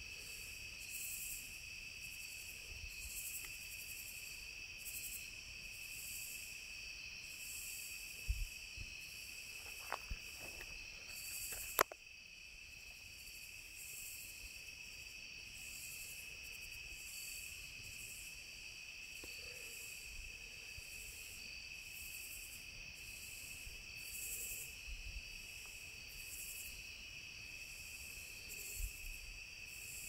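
Night insect chorus: steady cricket trilling, with a higher call pulsing about once a second. A few faint clicks come between about eight and twelve seconds in, the sharpest near twelve seconds.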